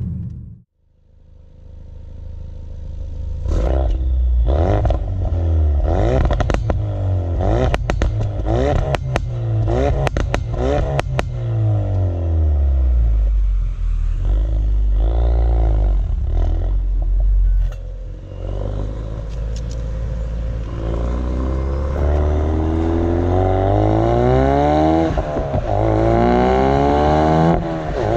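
Ford Focus RS Mk3's turbocharged 2.3-litre four-cylinder heard at the tailpipe while driving: the engine revs up and down with a run of sharp pops and crackles from the exhaust. It then pulls hard with steadily rising pitch, dropping briefly at two upshifts near the end.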